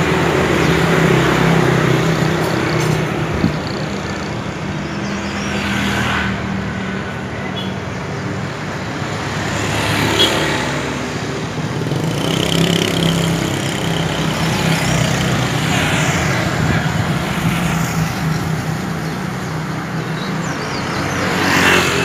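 Road traffic: a steady engine hum close by, with vehicles passing and swelling up several times.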